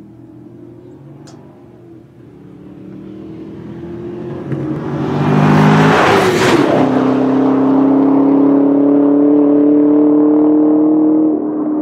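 Chevrolet Camaro SS's 6.2-litre V8 accelerating hard from a standing start. It grows louder as it approaches, passes close by about six seconds in with a drop in pitch, then stays loud at full throttle as it pulls away.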